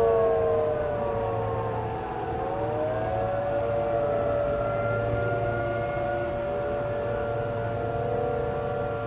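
Several outdoor warning sirens sounding at once during a monthly test, their tones overlapping. In the first two seconds some tones slide down in pitch, then others rise and hold steady again.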